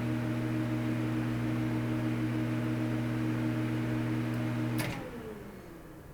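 Film projector running with a steady motor hum and whir. About five seconds in there is a sharp click, and the whir then falls in pitch and fades as the motor winds down after being switched off.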